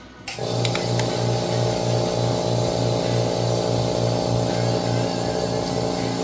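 PowerHouse oil-less, 'noiseless' 1/2 HP twin-cylinder air compressor switching on about a third of a second in and then running steadily with a hum and a slight regular pulse as it charges its empty 24-litre tank.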